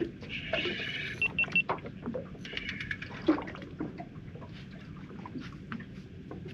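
Water lapping and sloshing against a small boat's hull, with scattered light knocks and a few short high ticks about a second in.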